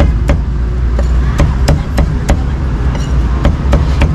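Cleaver chopping roast pork on a thick round wooden chopping block: a quick, regular run of sharp chops, two to three a second. A steady low rumble runs underneath.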